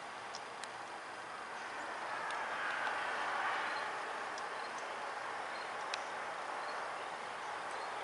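Steady outdoor background hiss that swells and eases off around the middle, with a few faint, sharp ticks scattered through it.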